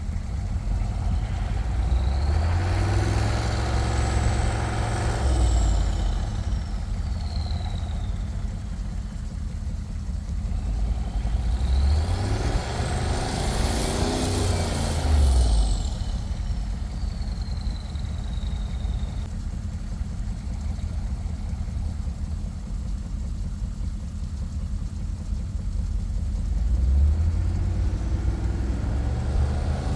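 A vehicle engine runs steadily and revs up and settles back three times, the last near the end. Each time a high whine climbs and falls away with it.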